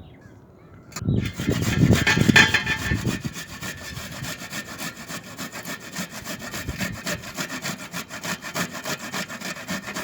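Fresh ginger being grated on a hand grater: quick repeated rasping strokes that start about a second in, loudest for the first couple of seconds, then carrying on steadily.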